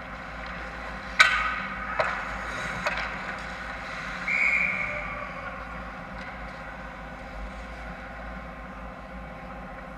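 Ice hockey goal-mouth scramble: sharp clacks of sticks, puck and skates about a second in, again near two seconds and near three, the first the loudest. About four seconds in a short referee's whistle blows, stopping play with the puck covered by the goalie, over the steady hum of the rink.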